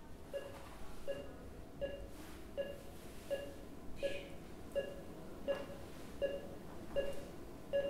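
Hospital patient monitor beeping steadily in time with the heartbeat, one short electronic beep about every three-quarters of a second.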